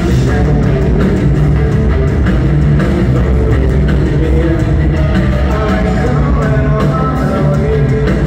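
Live rock band playing loudly, heard from the audience in an arena: heavy electric guitars and drums over a strong, steady low end.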